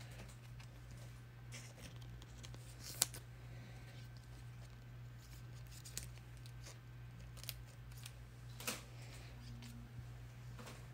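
Faint rustling and a few sharp ticks of trading cards being handled, over a low steady hum.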